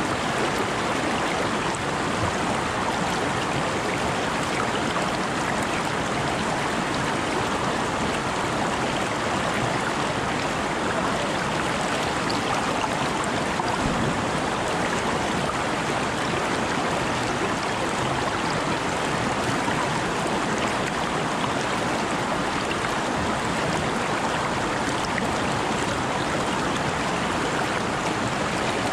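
Shallow, rocky stream flowing over stones right at the microphone: a steady wash of running water.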